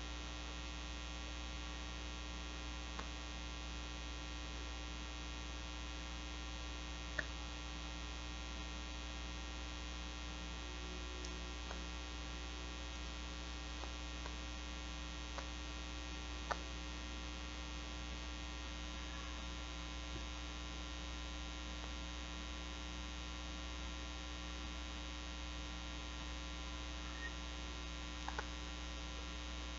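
Steady electrical mains hum, a buzz of many even tones, with a few faint clicks from cord being handled.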